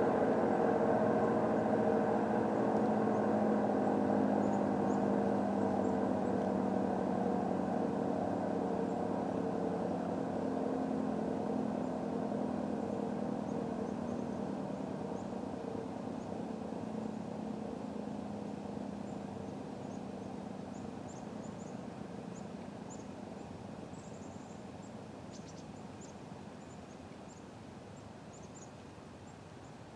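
ACA P-10 Penetrator dual-tone (500/667 Hz) rotating outdoor warning siren winding down after its attack signal, its two tones sliding slowly lower in pitch and fading.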